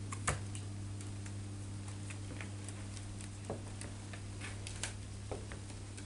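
Australian magpie's claws tapping on wooden floorboards as it walks, a scatter of light, irregular clicks, over a steady low hum.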